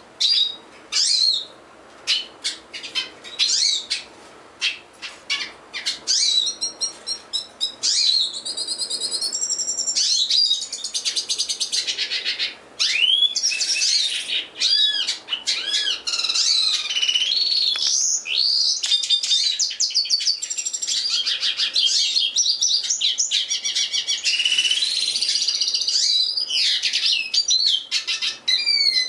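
A caged yellow-rumped cacique sings. For the first several seconds it gives scattered sharp clicks and short whistles. From about ten seconds in it runs into a loud, almost unbroken stream of varied whistles, trills and sweeping notes.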